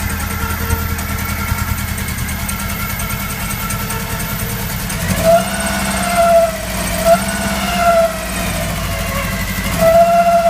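Volkswagen Golf Mk1 engine idling steadily, then revved in several short blips from about halfway through. The head gasket is blown between two cylinders.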